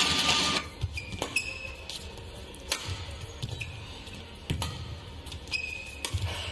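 A badminton rally: sharp cracks of rackets striking the shuttlecock about every one to two seconds, with short squeaks of court shoes on the mat between them. A loud background hiss cuts off about half a second in.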